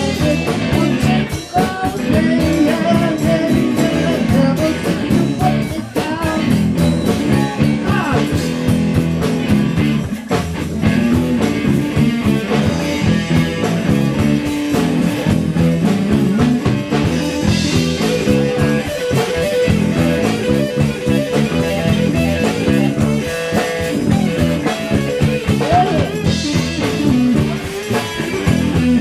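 Live blues-rock band playing an instrumental stretch with no singing: electric guitar over bass and a drum kit.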